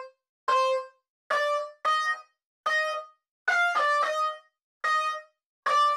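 A tune of short, horn-like honks, about nine of them, each at a different pitch, with dead silence between the notes.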